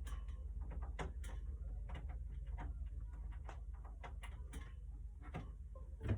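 Scattered light clicks and taps, several a second and irregular, from handling a mechanical keyboard and its cable, over a steady low hum.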